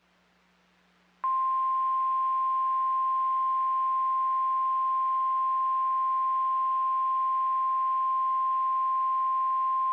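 NOAA Weather Radio warning alarm tone: a single steady 1050 Hz tone, starting about a second in and held unbroken, over faint receiver hiss. It signals that a warning message, here a severe thunderstorm warning, is about to be read.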